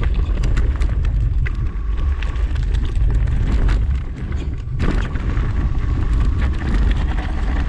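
Wind buffeting the microphone of a camera riding on a mountain bike going down a rocky gravel trail, with a constant low rumble and a stream of clicks and rattles from the tyres and bike over stones.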